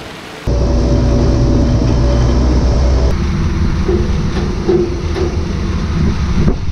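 Heavy missile transporter-loader vehicle on the move: a loud, steady low engine drone and rumble. About three seconds in it changes to a rougher rumble with a rhythmic clatter over it.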